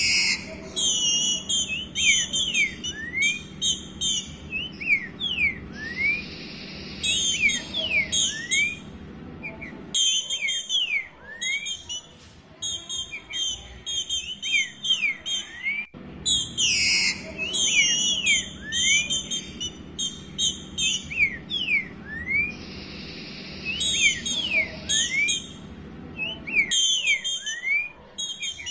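Female green-winged saltator (Saltator similis) calling: a rapid run of short, rising whistled notes mixed with higher chattering notes, repeated in bouts. This is the female's call soliciting mating.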